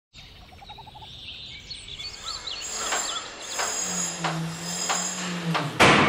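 Title-sequence sound effects: bird-like chirps, then about five evenly spaced knocks over a low hum, ending in a sudden loud rush of noise.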